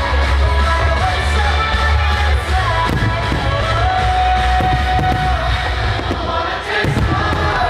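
A pop song with a held singing voice over a heavy bass. A couple of firework bangs come in underneath, about three seconds in and near the end.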